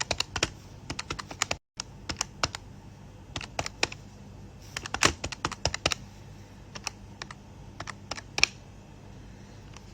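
Calculator keys being tapped in short, irregular runs of sharp clicks, as a price is worked out.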